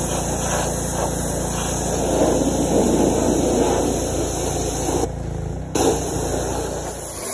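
Gas pressure washer engine running steadily under the hiss of the water jet from the wand. The sound drops out for about half a second around five seconds in.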